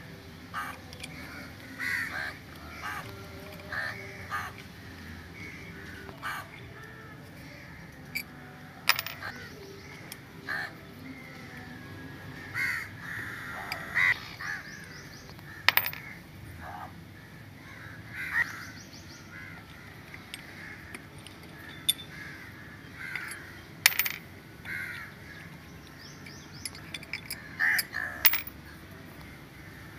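Sharp metallic clicks every few seconds as a wrench works the cover-plate bolts of a Yamaha outboard powerhead, with birds calling repeatedly.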